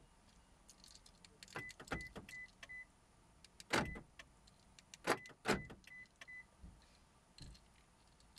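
Car's power door locks clunking several times as the key remote's buttons are pressed, with two runs of short high beeps from the car. The remote has just been reassembled and its buttons are being tried out.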